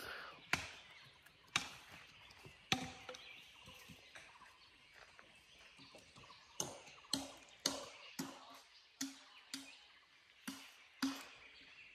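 Quiet, sharp knocks, scattered at first and then coming evenly about two a second from about halfway through, some with a short hollow ring.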